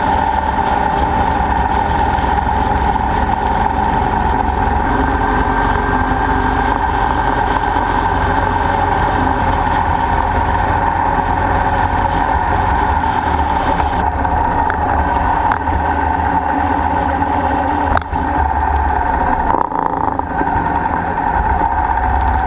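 Motorcycle ridden at a steady road speed: the engine running under a loud, steady rush of wind on a bike-mounted camera, with a fluttering low rumble. A single sharp click sounds near the end.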